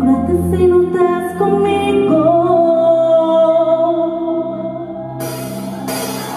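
A Latin pop song with a woman singing live into a microphone over a backing track with steady bass, holding one long note in the middle. Near the end a loud rush of hiss comes in over the music.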